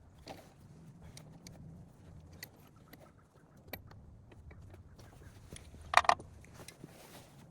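Hand tools and metal parts clinking and tapping during engine teardown work, with two sharp metal clanks close together about six seconds in.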